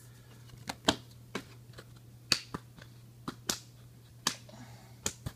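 Sharp, irregular plastic clicks and taps, about ten of them, from a trading card being handled and slid into a clear rigid plastic card holder.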